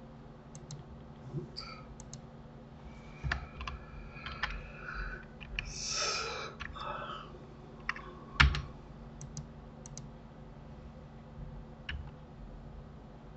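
Computer keyboard keystrokes and mouse clicks, scattered and irregular, with one louder knock about eight seconds in, over a steady low electrical hum.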